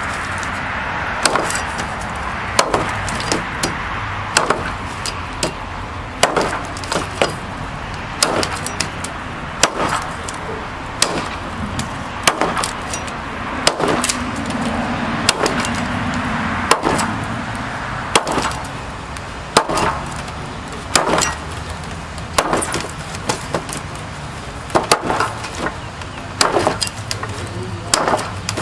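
A large chopping knife striking into a log over and over, sharp knocks of the steel blade biting the wood at roughly one blow a second, at an uneven pace.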